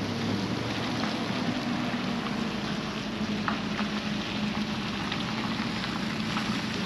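Pickup truck towing a loaded equipment trailer pulling away on a wet street: a steady engine hum under the hiss of tyres on wet pavement.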